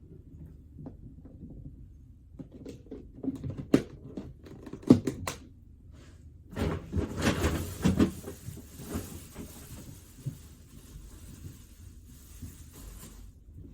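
Knocks and clatter of takeout containers and dishes being handled on a desk: two sharp knocks partway in, then a louder stretch of clattering and rustling.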